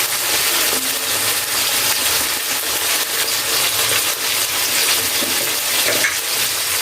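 Powdered spices and tomato frying in hot oil in a kadai, a steady crackling sizzle.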